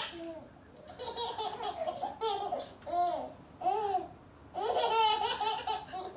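Infant babbling and laughing: a string of short, high-pitched vocal bursts with brief pauses between them.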